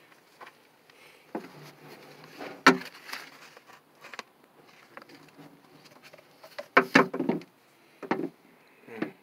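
Irregular knocks, clacks and rustling from hands handling a car's stripped inner door panel and door speaker. There is one sharp knock about three seconds in and a cluster of clacks around seven seconds.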